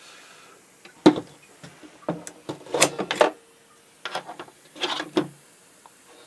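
Clicks and knocks of tools and wires being handled at a workbench, in short clusters: a sharp knock about a second in, a busier patch around two to three seconds, and another group near five seconds.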